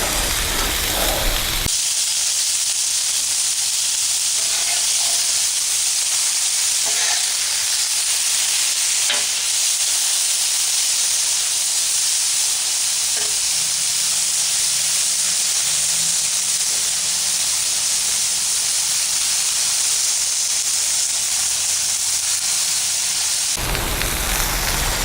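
Chicken breast pieces frying on a hot Blackstone flat-top griddle: a steady high sizzle, with a few faint light ticks.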